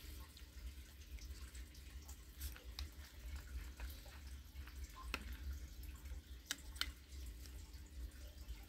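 Quiet room tone: a steady low hum with a few faint, scattered soft clicks and ticks.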